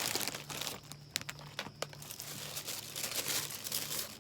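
Packaging crinkling and rustling with scattered sharp crackles as a wallet is worked out of its wrapping, louder at the start and again in the second half.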